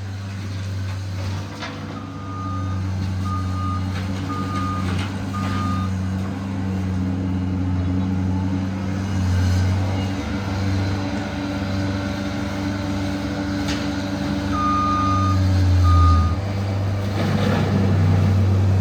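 John Deere skid steer engine running steadily under load, its back-up alarm beeping about once a second in two runs as the machine reverses. A few sharp knocks sound over the engine, and it gets louder about 16 seconds in.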